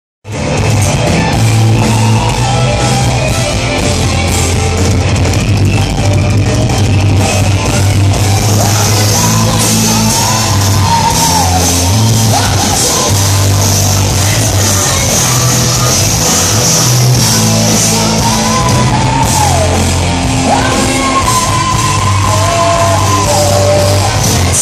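Hard rock band playing live in a large hall: electric guitars, bass guitar and drums, with a woman singing in stretches over the loud, steady band.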